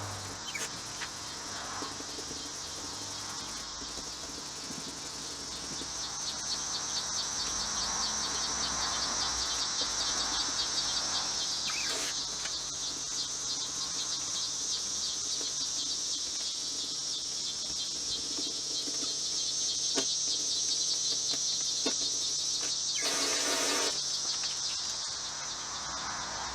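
Insect chorus: a steady, high-pitched, rapidly pulsing trill. A brief rustle of noise comes near the end.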